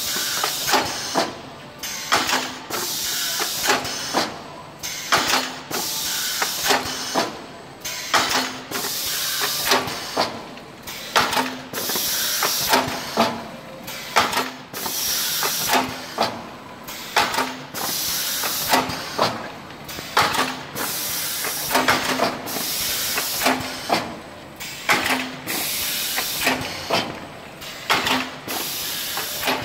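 Automatic tray denesting and filling line running: pneumatic valves and cylinders cycle about once a second, with a hiss of compressed air on each stroke between sharp mechanical clacks.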